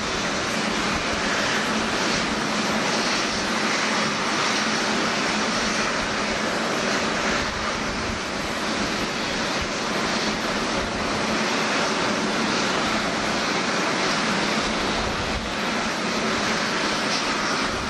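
Steady jet noise from a Boeing 747-8's four GEnx turbofans at low taxi thrust: an even rushing hiss with a faint low hum underneath.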